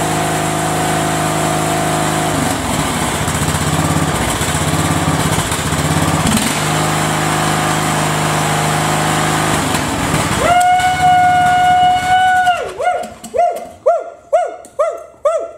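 Briggs & Stratton single-cylinder engine on a Craftsman riding mower running. Its sound shifts a few times as the throttle lever is worked, and the repaired throttle control now answers the lever. About ten seconds in, a loud held whistle-like tone lasts about two seconds, then comes a string of short falling notes.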